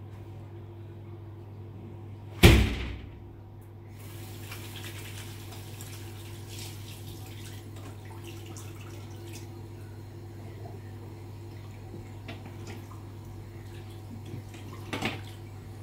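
A single loud knock about two seconds in, then a faint hiss of water and small handling clicks at a bathroom sink, over a steady low hum.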